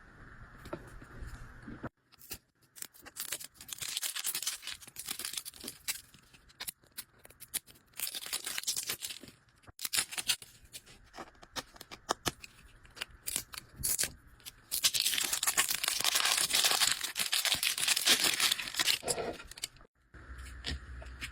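Plastic packaging being torn and crinkled in repeated bursts, with many sharp clicks and a longer stretch of steady tearing and crinkling near the end.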